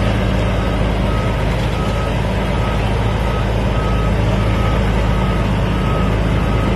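Semi truck's diesel engine running steadily at low speed as the rig creeps forward through a turn, with a high electronic beep repeating about every 0.7 seconds.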